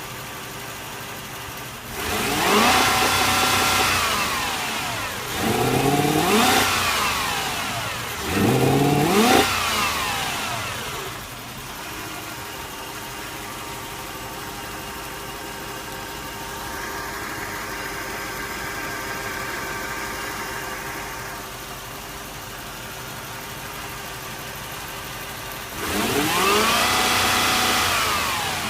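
Toyota 1UZ V8 engine idling roughly and being revved four times: three quick blips in the first ten seconds, each rising and falling back to idle, then a long stretch of idle, and a fourth rev near the end.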